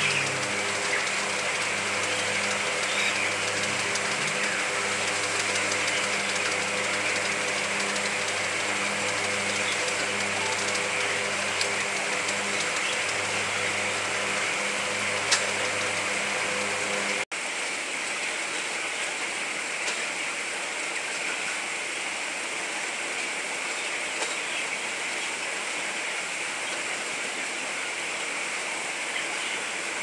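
Steady hum and rush of a broiler house's ventilation machinery. The low hum cuts out abruptly a little over halfway through, leaving a slightly quieter steady rush.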